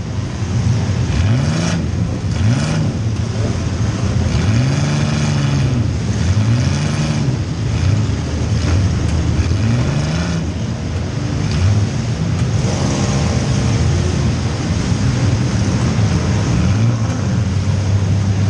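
Compact demolition-derby car's engine, heard from inside the car, revving up and dropping back over and over as the throttle is worked, then holding a steadier speed near the end.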